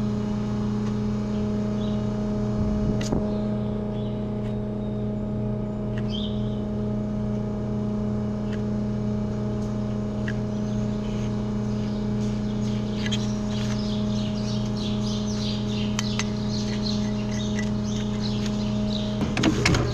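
A machine running with a steady hum throughout. Over it come scattered short, high clicks and scrapes, busiest in the second half, with a cluster of sharper knocks near the end.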